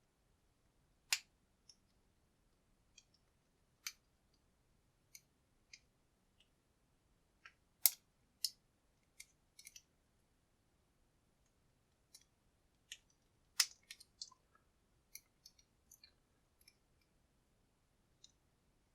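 Scattered sharp clicks and light taps, irregular and separated by quiet, from a high-security padlock and small tools being handled as the lock is taken apart.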